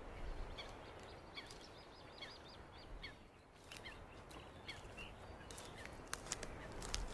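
Faint outdoor ambience with small birds chirping over and over, short quick calls through the first few seconds. A few light clicks come near the end.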